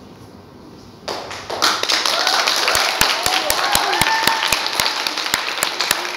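A group of voices breaks out about a second in, and soon after a steady beat of hand claps sets in, about four claps a second.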